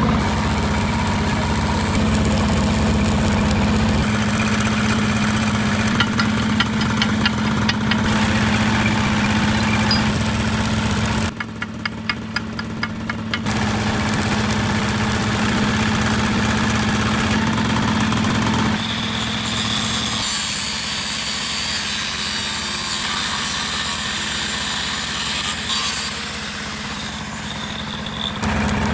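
An engine idling with a steady low hum. The sound changes abruptly several times, and a quieter stretch of fast, even ticking comes about eleven seconds in.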